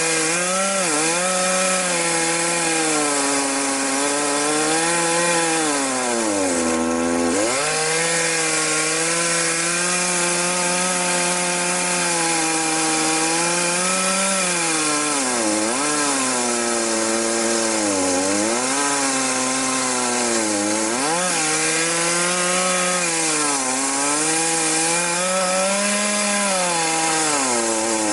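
Chainsaw running at full throttle while rip-cutting a log lengthwise into planks. The engine pitch holds steady, then sags and recovers several times.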